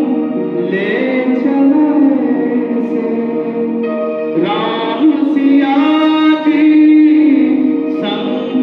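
Hindi devotional bhajan played on a Yamaha PSR-E473 electronic keyboard, with steady held backing chords under a melody, and a man's voice singing along at times.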